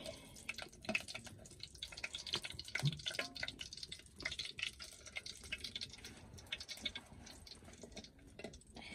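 Cooking over an open wood fire: a fast, irregular stream of small crackles and pops from the burning wood and the simmering pot on it.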